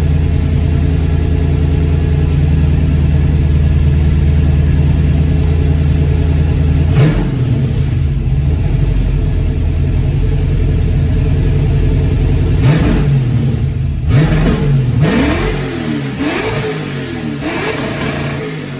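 LS V8 on E85 with freshly installed Holley Sniper dual-quad throttle-body EFI, idling steadily on its first start while the system self-learns its tune. About seven seconds in it is revved once. In the last six seconds it is blipped several times in quick succession.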